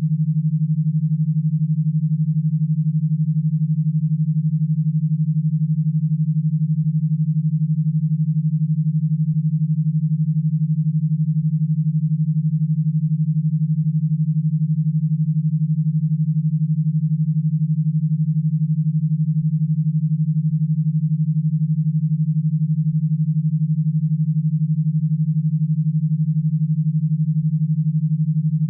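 Synthesized e-stim audio signal with a 12 Hz pulse: a steady low tone, pulsing rapidly and unchanging.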